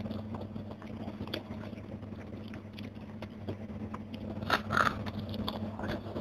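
Close-up eating sounds: chewing and small crunches as a person eats crispy fried fish with rice and sambal by hand. There is a louder crunchy cluster about four and a half seconds in, as a fresh handful goes into the mouth.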